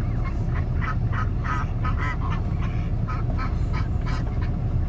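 A group of domestic ducks quacking in quick, repeated short calls, about four a second, over a steady low rumble.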